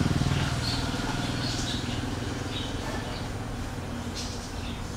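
An engine running steadily with a fast, even pulse, slowly getting quieter, with faint bird chirps above it.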